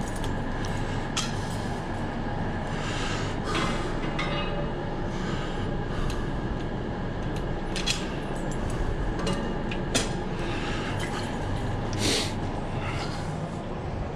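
Steady road rumble and wind hiss from riding a pedal bicycle, with a few sharp clicks and rattles scattered through.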